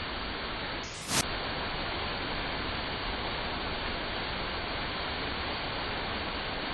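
Steady rush of water pouring down an artificial waterfall. About a second in there is a brief dip and a short, sharp pop, where two separately recorded phone clips are joined.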